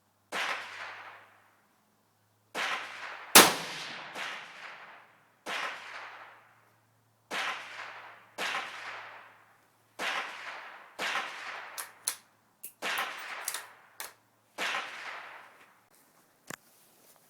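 Gunshots, about fifteen sharp cracks at uneven intervals, each trailing off in a short echo; one crack about three seconds in is much louder than the rest, and a few near the end are short and faint.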